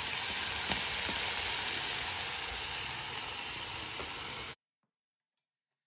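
Onions, peas and green chillies frying in oil in an aluminium kadhai, with a steady sizzle that cuts off suddenly to dead silence about four and a half seconds in.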